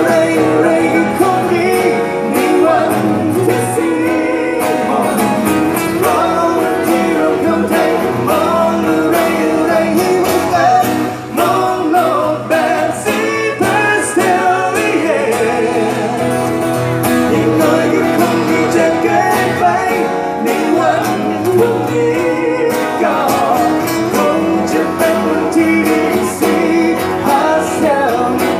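Live acoustic performance of a song: two acoustic guitars strummed and plucked under a singing voice, heard through the stage PA system.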